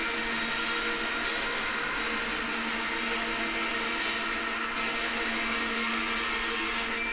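Noise music from an electric guitar played through a small amplifier and electronics: a dense, steady wash of noise with several held tones and no beat.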